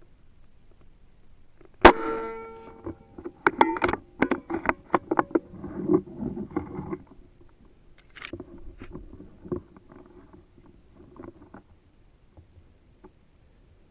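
A single air rifle shot about two seconds in, a sharp crack with a short metallic ring. It is followed by about five seconds of rapid fluttering and flapping from the birds at the water, then scattered faint rustles and clicks.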